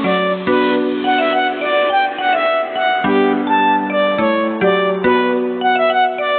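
Background music of plucked and bowed strings, with notes changing about twice a second.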